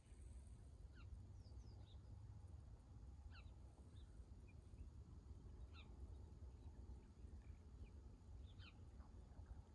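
Faint, scattered bird calls: short, falling chirps a second or more apart, over a steady low rumble.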